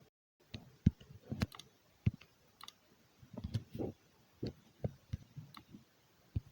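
Quick, irregular tapping on hard objects: a string of sharp clicks and knocks, a few a second and uneven in spacing, some with a dull thud under them.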